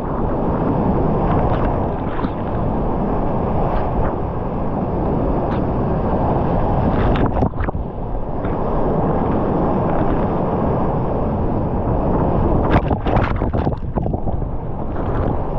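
Whitewater rapids rushing loudly around a kayak, heard close up from a camera on the boat. Water splashes over the camera, once about halfway through and in a quick cluster near the end.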